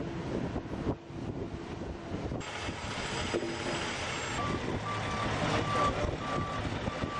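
Heavy vehicle engine running amid outdoor work noise. Partway through, a reversing alarm starts beeping steadily, about twice a second.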